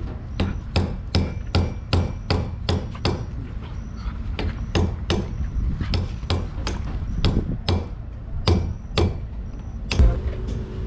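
A hammer striking a wooden plank again and again, about two or three blows a second, pausing briefly twice.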